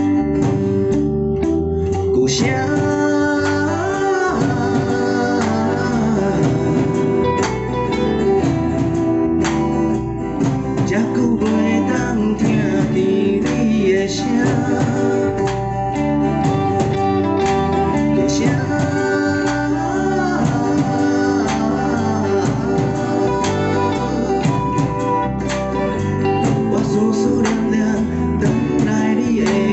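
Live band playing a song: acoustic and electric guitars over a drum kit, with a lead melody that slides and bends in pitch from about two seconds in.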